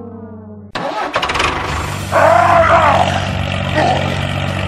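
A falling horn-like tone breaks off under a second in, and a tractor engine cranks with rapid clicks and catches into a steady low chug. A loud wail rising and falling rides over it about two seconds in, and briefly again near the end.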